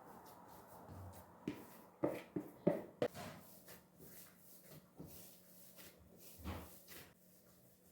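A few light knocks and clatters of objects being handled and set down, several in quick succession about two to three seconds in and one more with a soft thud later.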